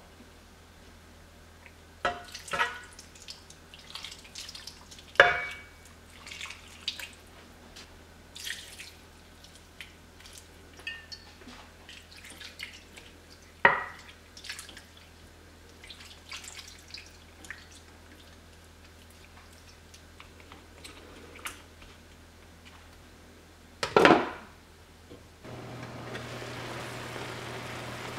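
Kitchen work at a pot: scattered light clinks and taps of a metal spoon and ingredients against the pot, with a few sharper knocks, and water poured in from a glass measuring cup about halfway through. Near the end a steady hiss of the pot at the boil sets in suddenly.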